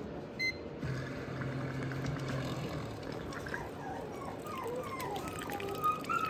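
An electric hot-water dispenser beeps once as its button is pressed, then hums low for about two seconds. Puppies whimper over the last few seconds, a run of short falling cries that grow louder.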